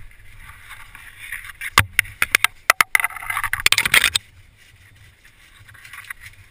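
Overhanging branches and leaves scraping and knocking against a small boat as it is pushed through them. A run of sharp knocks and snaps about two to three seconds in, then a dense rustling scrape that stops about four seconds in.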